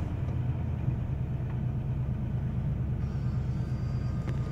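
2001 Ford F-150's 5.4L V8 idling fast just after starting, a steady low hum heard from inside the cab as the idle settles from about 1,700 toward 1,200 rpm.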